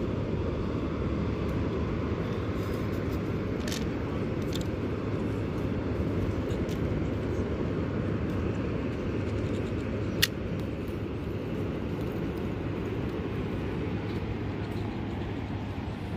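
Steady low rumble of wind and surf on an open seaside pier. A few faint clicks from fishing tackle being handled, with one sharp click about ten seconds in.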